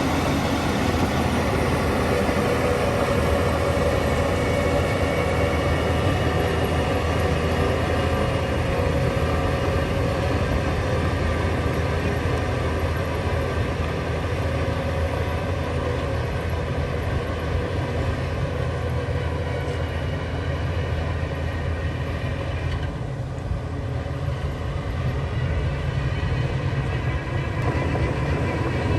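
Heavy diesel earthmoving machinery running under load, a steady low engine hum with mechanical noise over it. It eases off about three-quarters of the way through and picks up again near the end.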